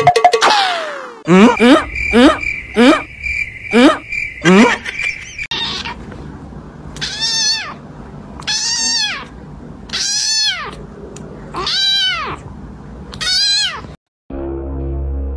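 A ginger kitten meowing five times in a steady rhythm, about one and a half seconds apart, in the second half. Before it, a loud run of short rising sounds over a steady high tone.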